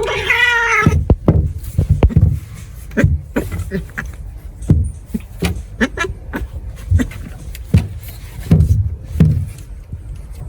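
A cat gives one drawn-out yowling meow that ends about a second in. It is followed by a run of irregular low thumps and knocks.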